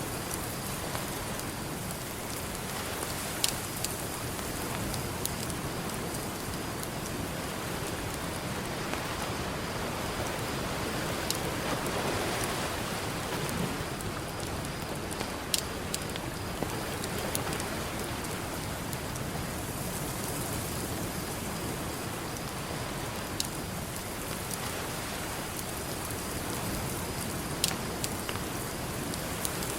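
Campfire crackling, with sharp pops every few seconds over a steady wash of ocean surf that swells up about twelve seconds in.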